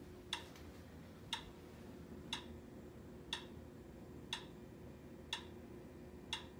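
Metronome clicking at 60 beats per minute: one sharp click each second, seven in all.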